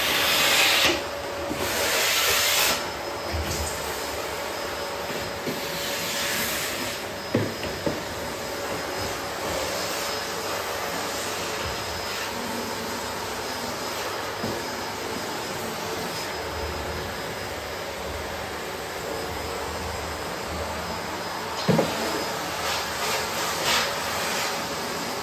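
Vacuum cleaner running steadily, its nozzle rubbing over fabric and surfaces, with louder surges of suction hiss in the first few seconds and a few light knocks.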